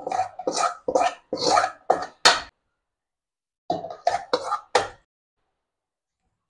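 Steel spoon scraping and knocking sautéed onions and tomatoes out of an aluminium kadai into a mixer-grinder jar: a quick run of about seven scrapes, a pause of about a second, then four more.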